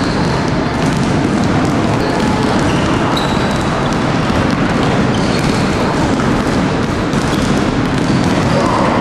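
Several basketballs bouncing on a wooden gym floor, many impacts overlapping in a reverberant sports hall.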